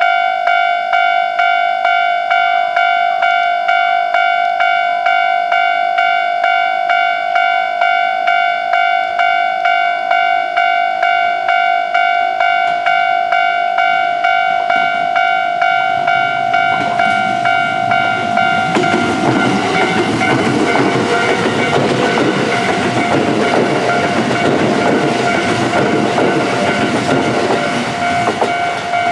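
Japanese level-crossing warning bell ringing in steady, evenly repeated strokes. From about 17 seconds in, a Kintetsu express electric train made of 1259-series and 5800-series cars runs over the crossing, and its loud running noise covers the bell for the last ten seconds or so.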